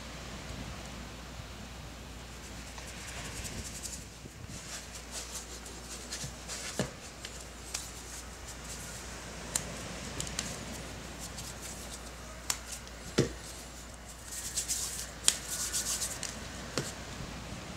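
Hands dusting flour and working wheat noodle dough on a wooden cutting board: soft rubbing and brushing, with scattered sharp taps and knocks on the board and a busier burst of rustling near the end.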